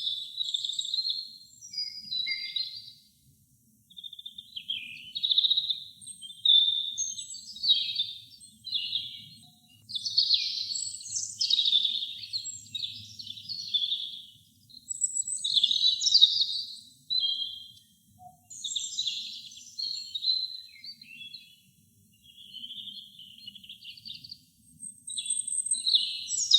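Robin singing: a run of high, warbling phrases, each a second or two long, separated by short pauses.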